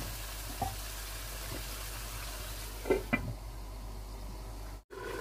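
Chicken curry gravy simmering in a karahi, with a steady bubbling sizzle. It is broken by a single knock about half a second in and two sharp clinks on the pan around three seconds in. The sound cuts out for an instant near the end.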